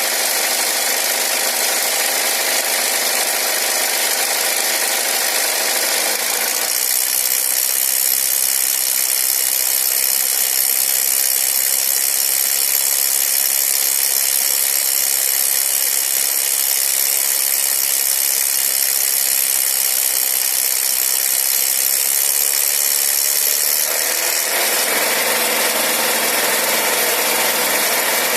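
Nissan X-Trail's MR20 2.0-litre four-cylinder petrol engine running steadily with a knock in the engine. The tone of the sound shifts abruptly about seven seconds in and again near the end.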